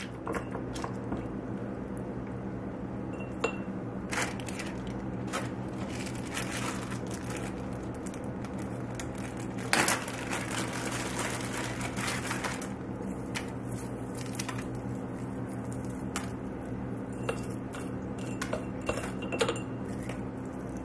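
Hands handling thawed roasted red peppers, plastic zip-top freezer bags and glass mason jars: plastic rustling, soft wet squishing and light taps and clinks against the glass, with a longer crinkle of the bag about ten seconds in. A steady low hum runs underneath.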